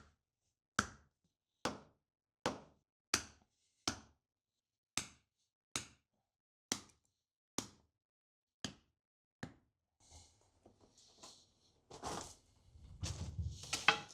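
Sledgehammer driving a sharpened post into the ground, about a dozen sharp blows roughly one a second, the later ones a little weaker. In the last few seconds the blows give way to rustling and handling noise.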